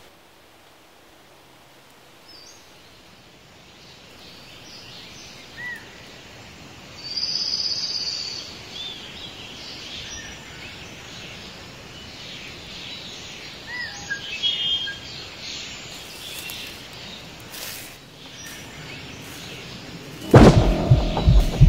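Woodland ambience with birds chirping here and there, growing slowly louder, with a brief loud high buzz about seven seconds in and a few sharp clicks later on. Near the end a sudden loud low hit opens a music cue.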